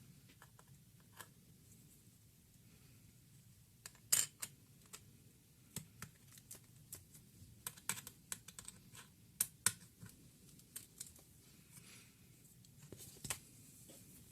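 Irregular sharp clicks and taps of hard plastic and small parts being handled while working on a laptop, a few louder snaps among many light ticks.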